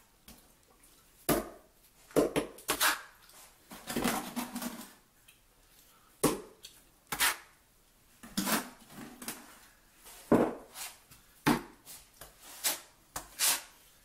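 Steel trowel scooping and dropping thinset mortar, with irregular sharp metal clinks and scrapes.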